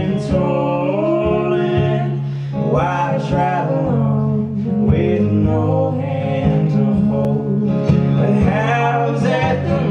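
Live acoustic song: a steel-string acoustic guitar strummed under sung vocals.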